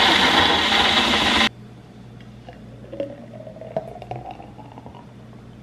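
Personal blender running loudly, blending a smoothie, then cutting off suddenly about a second and a half in. After it the smoothie is poured into a tall glass, a faint pouring sound whose pitch rises as the glass fills.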